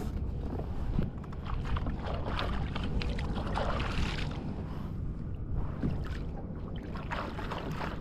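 Wind rumbling on the microphone over water lapping and splashing against a fishing kayak's hull, with the splashing loudest about halfway through.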